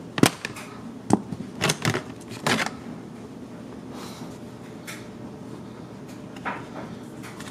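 Plastic clips of a 3rd-gen Lexus IS dashboard side trim panel popping loose as it is pried off with a plastic pry tool: about five sharp snaps in the first three seconds. Then quieter rustling and a few light knocks as the freed panel is handled.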